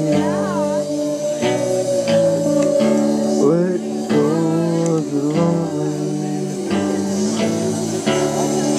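Live band playing: electric guitar and other plucked strings over drums, with a melody line that bends and slides in pitch.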